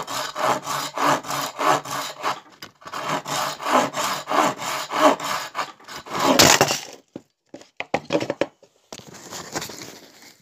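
Serrated knife sawing back and forth through a hard cake of pressed-oilcake fishing bait, in quick even strokes with a short pause about two and a half seconds in. About six and a half seconds in comes a loud clatter and rubbing, followed by quieter scattered handling noise.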